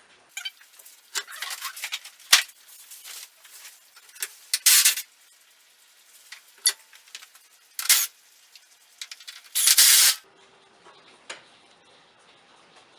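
Hands handling and fitting radiator mounting brackets: irregular clicks, rattles and scrapes of small metal and plastic parts, with a sharp click a little over two seconds in and a longer scraping rustle just before ten seconds in.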